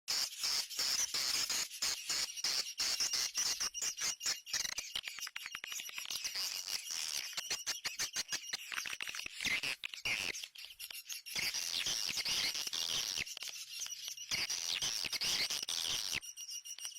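Swiftlet lure recording (suara walet): dense high twittering chirps of swiftlets mixed with rapid clicking, played to call swiftlets into a swiftlet house.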